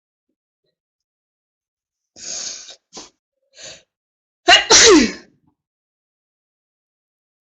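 A woman sneezing in a prolonged sneezing fit. About two seconds in come a few short, sharp breaths, then a loud, explosive sneeze about four and a half seconds in, ending in a cry that falls in pitch.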